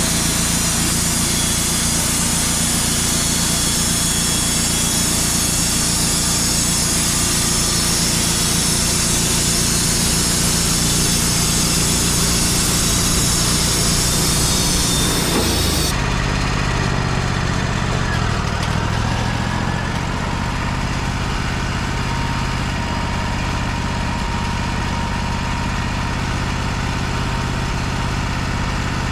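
Wood-Mizer LT35 band sawmill running steadily. For the first half a bright, high-pitched sawing noise from the blade going through the cedar log sits over the engine, then it cuts off abruptly and the engine keeps running on its own.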